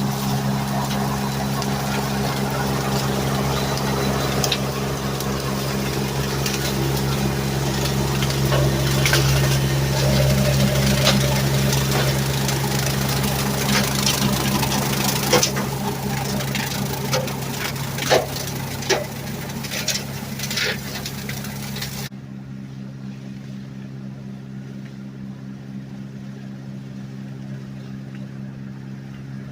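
Tractor engine running steadily, with scattered clicks and knocks over the first three-quarters. About three-quarters of the way through the sound becomes duller and a little quieter while the engine keeps running.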